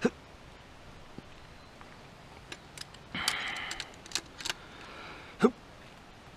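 Wrench working the connecting-rod cap nuts on a Toyota 20R engine's crankshaft to break them loose: scattered metal clicks and clinks with a short spell of rasping, then one sharp, loud knock about five and a half seconds in.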